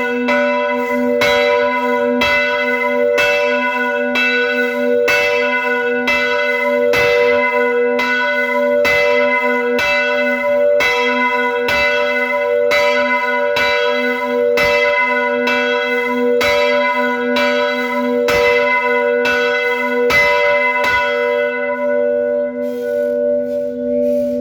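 Church bell tolling with even strikes about once a second over a steady ringing hum. The strikes stop near the end and the bell rings on as it fades.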